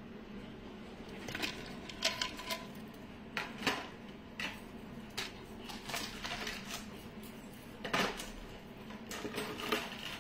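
Metal costume jewellery being handled and set down: about a dozen light clicks and clinks spread irregularly, a couple of them with a brief ring.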